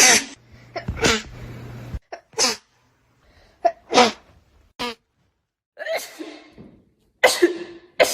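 People sneezing one after another, about nine short, explosive sneezes roughly a second apart, some with a quick intake of breath before them.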